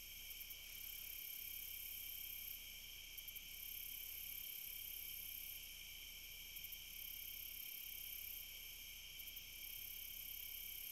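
A steady chorus of insects calling. A higher-pitched trill drops out for about a second roughly every three seconds and comes back with a few quick pulses.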